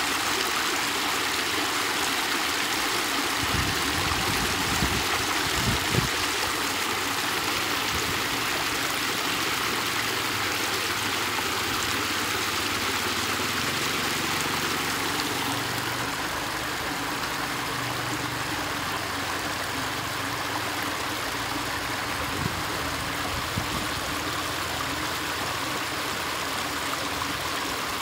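Muddy water rushing steadily through a concrete culvert and splashing over its edges, with a few low thumps about four to six seconds in.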